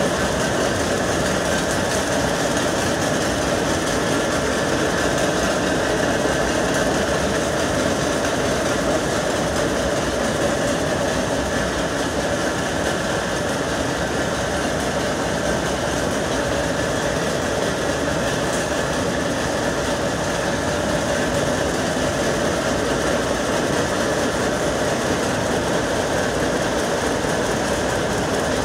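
Many jacquard power looms running together in a weaving shed: a loud, steady, dense mechanical clatter.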